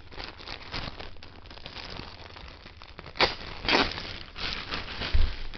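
Clear plastic packaging crinkling and rustling as baby clothes sealed in plastic bags are handled, with a couple of louder crackles a little past three seconds in and a low thump about five seconds in.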